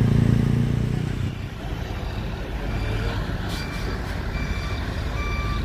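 A large truck's engine running close by, fading away after about a second. From about three seconds in, a reversing alarm starts sounding in short repeated beeps.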